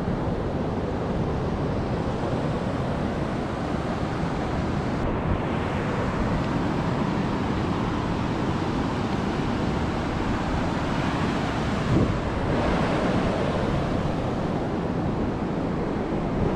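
Ocean surf washing steadily onto the beach, with wind buffeting the microphone; a brief knock about twelve seconds in.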